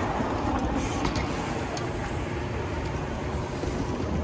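Steady rumble of street traffic. A trials bike lands softly on paving stones within the first second and rolls away.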